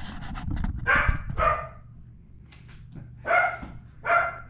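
A dog barking excitedly in short single barks: two close together about a second in, then two more near the end. Some knocking and handling clatter comes at the start.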